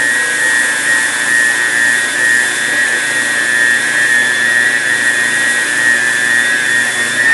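Electric stand mixer running steadily with a constant high whine as it kneads bread dough in its bowl while the dough comes together.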